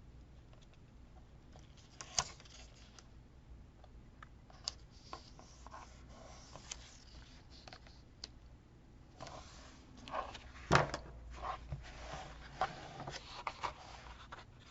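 Paper and sticker sheets being handled on a desk: scattered rustling, light scraping and small taps, busier in the second half, with one sharper click a little before the end.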